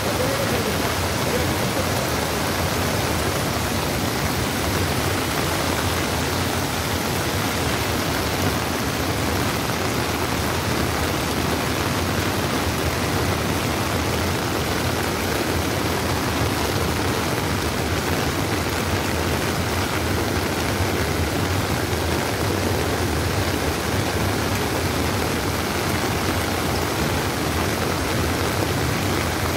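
Steady, unbroken rushing hiss of heavy rain and floodwater flowing over a railway line.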